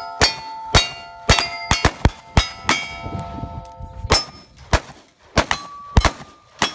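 Rapid revolver shots at steel targets, each hit followed by the clang and lingering ring of the struck steel plates. About a dozen shots in quick succession, with a pause of about a second partway through.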